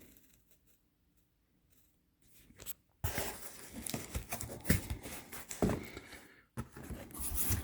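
Near silence for about three seconds, then rustling and crinkling of packing material being handled and pulled from a shipping box, with sharp knocks and scrapes mixed in.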